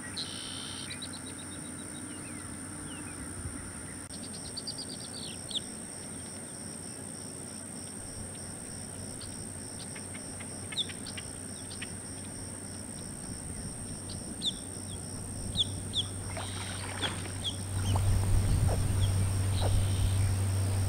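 American alligator hatchlings chirping: short, high calls that slide downward, heard singly or a few at a time and coming more often in the last third. A steady high whine runs underneath, and a low rumble comes in near the end.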